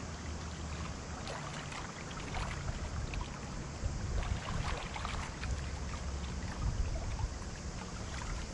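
Small waves lapping and trickling against a pebble shoreline, many small splashes and ticks, over a steady low drone.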